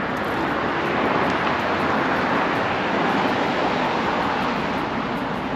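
Road traffic noise from a car passing on a city street. The tyre and engine noise swells over the first second or two and fades toward the end.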